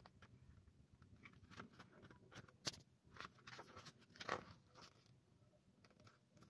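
Faint rustling of a CD lyric booklet's paper pages being handled and turned, with a sharp click a little under three seconds in and a louder rustle just after four seconds.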